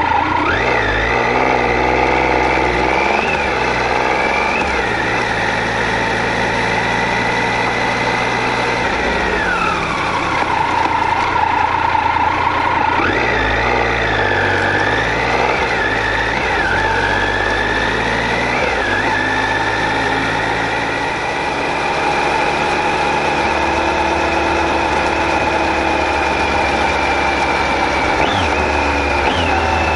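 Triumph Tiger 800 XC's three-cylinder engine under way, its pitch rising and falling as the throttle and gears change. The pitch dips to a lower note for a few seconds about ten seconds in, climbs again, then holds steady through the second half, over a constant rush of road and wind noise.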